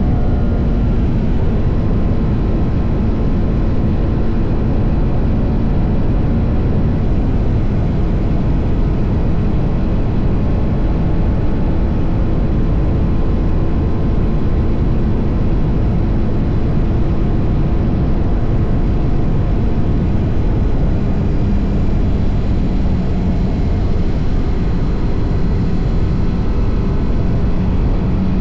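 TVS Apache RR 310's single-cylinder engine running through its stock exhaust at a steady cruise, its pitch drifting slightly with small changes in speed, under a dense, steady rush of wind and road noise.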